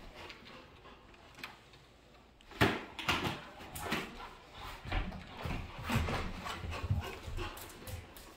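Labrador retriever playing tug-of-war over a flexible plastic bucket: a sharp knock about two and a half seconds in, then a run of irregular knocks and scuffs of the bucket and paws on a wood floor, mixed with the dog's play noises.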